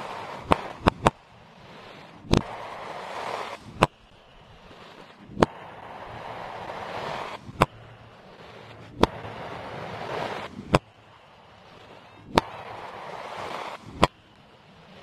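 Fireworks played in reverse: a crackling hiss swells up over a second or so and cuts off in a sharp bang. This happens about a dozen times, one every one to two seconds, with three bangs close together near the start.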